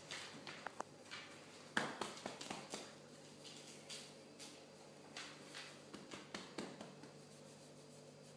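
Dogs' claws clicking and tapping on a wooden floor as a Weimaraner and a Tibetan terrier puppy walk about, in light, irregular taps with one louder tap just under two seconds in.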